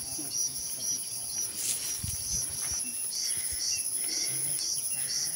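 Insect chorus in summer forest: a steady high-pitched drone, with a second call pulsing about twice a second over it.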